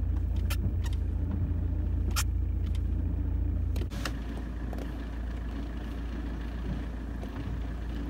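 Saab 9-3 1.9 TiD four-cylinder turbodiesel idling with the clutch being worked, making the weird sound the owner puts down to a dual mass flywheel that is probably going bad. A few light clicks, and about four seconds in the engine sound drops slightly and changes.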